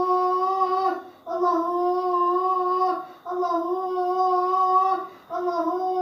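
A high-pitched human voice holding long, steady wailing notes, each about two seconds long at the same pitch, with brief breaks between them.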